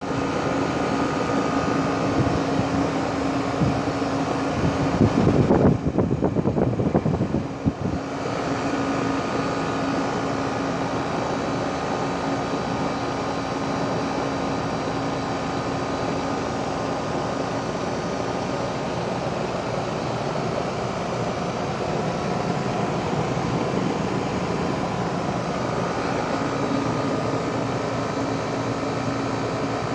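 2012 Rheem 4-ton heat pump running steadily in cooling mode, a constant hum with a low held tone under the fan noise. For about two seconds starting around five seconds in, a louder, uneven low noise covers it, then the steady running continues.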